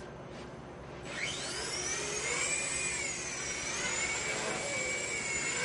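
Walkera CB100 micro RC helicopter's electric motor and rotor spooling up: a whine that starts about a second in, rises quickly in pitch, then holds and wavers up and down as the throttle is worked.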